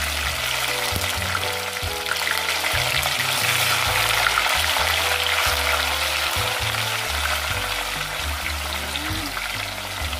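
Tofu cubes deep-frying in a pot of hot oil, a steady loud sizzle, while a spoon stirs them.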